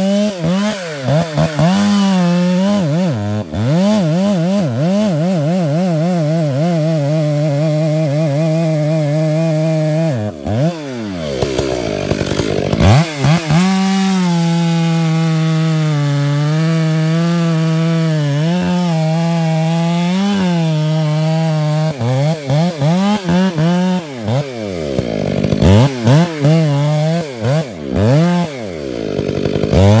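Two-stroke chainsaw cutting into a large conifer trunk under load, its engine note wavering as it bogs and recovers in the cut. The throttle drops off and revs back up several times, most often in the last few seconds.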